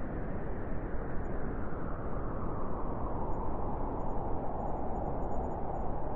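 Wind blowing steadily, a deep rushing noise that eases a little midway and swells again near the end.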